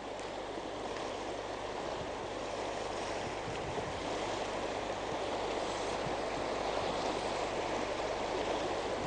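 River water rushing over a shallow gravel riffle: a steady wash that grows a little louder as it goes on.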